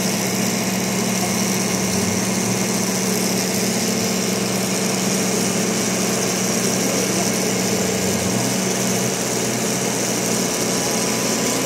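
Maruti Gypsy's engine running steadily with a constant hum while the vehicle sits bogged in a mud pit.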